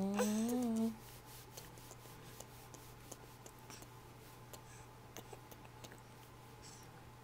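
A woman's closed-mouth hum that rises in pitch, for about the first second, her lips pressed to a baby's fist. Then only faint small clicks and rustles.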